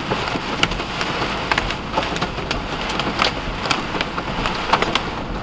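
Hail and heavy rain hitting the vehicle's roof and windshield, heard from inside the cab: a steady rain hiss with many sharp, irregular clicks and knocks of individual hailstones striking.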